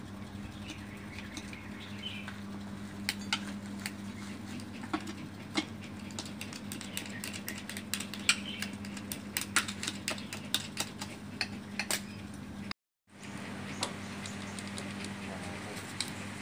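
Irregular light metallic clinks and taps of hand tools and parts, from a manual transmission being worked on, over a steady low hum.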